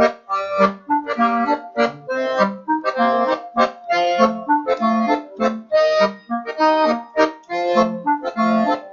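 Instrumental accordion music playing short, detached chords in a steady rhythm.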